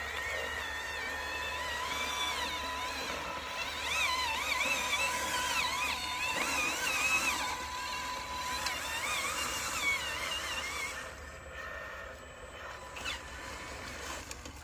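RC truck's motor whining, its pitch rising and falling over and over as the throttle is worked, then dying down about eleven seconds in.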